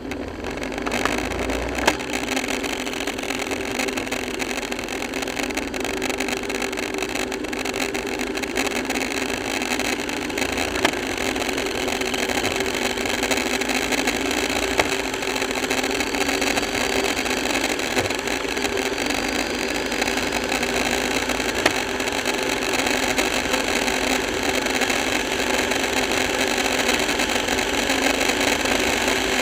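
Motorcycle riding at highway speed, heard from a camera on the bike: the engine runs steadily under a constant rush of wind, growing slightly louder as the bike speeds up, with a few short knocks.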